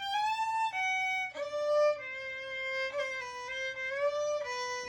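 Background music: a solo fiddle playing a slow melody, sliding between notes.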